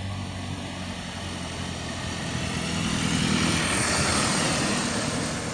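A light box truck driving past close by: its engine note and tyre noise grow louder to a peak about four seconds in, then ease off.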